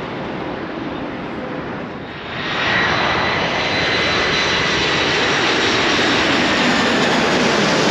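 Jet airliner passing close: a broad engine roar that swells sharply about two seconds in, with a steady high whine from the engines riding on top.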